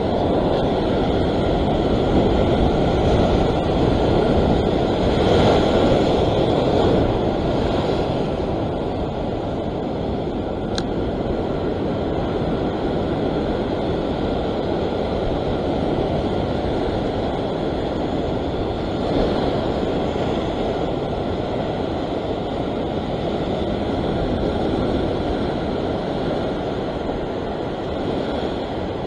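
Sea surf washing against a rock ledge, a steady rushing with a slow swell of breaking water a few seconds in, mixed with wind on the microphone.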